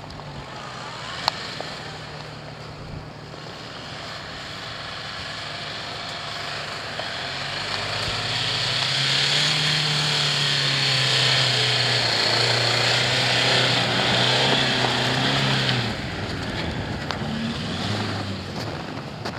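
Jeep Cherokee engine working under load with a steady note, growing louder as the Jeep comes closer, over a hiss of tyres churning through snow. The sound drops off sharply near the end.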